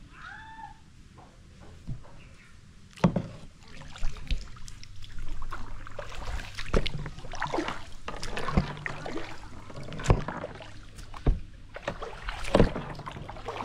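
Kayak paddling: the paddle splashing in the water and knocking now and then against the plastic hull of a sit-on-top kayak, in uneven strokes that start about three seconds in.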